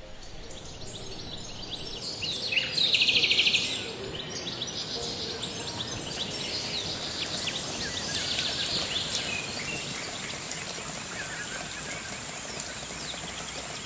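Small birds chirping and calling in short sweeping notes over a steady high hiss, with one loud buzzy trill about three seconds in.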